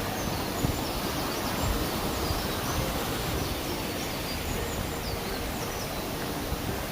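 Outdoor ambience: a steady rushing noise with scattered faint high chirps through it.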